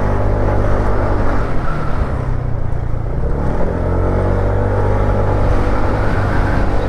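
Motorcycle engine running under way as the rider cuts through traffic, its pitch drifting gently up and down with the throttle, over road and wind noise.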